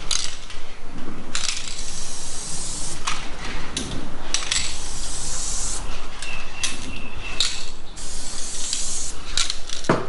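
Aerosol can of light oil sprayed in repeated hissing bursts, some short and some held for a second or more, coating the freshly polished drill press column to stop it rusting.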